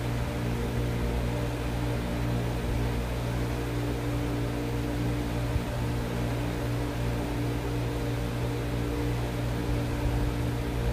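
A steady machine hum with an even hiss, like a fan or air-conditioning unit running, unbroken throughout.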